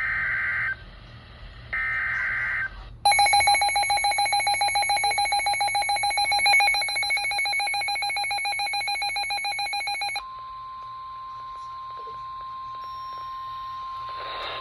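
Emergency Alert System tones: two short bursts of SAME data tones, a warbling two-pitch screech, then a loud, rapidly pulsing alarm tone for about seven seconds. Around ten seconds in it gives way to a steady single-pitch tone, the NOAA Weather Radio warning alarm tone.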